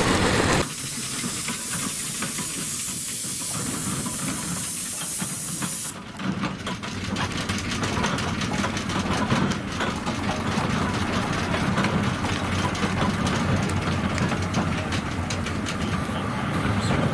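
A small steam wagon lets off steam in a loud, even hiss for about five seconds. The hiss then stops suddenly, and a steady low running rumble with fine rapid ticking from steam road engines follows.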